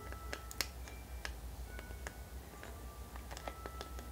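Quiet background music: sparse short notes at changing pitches over irregular ticking clicks, with a low steady hum underneath.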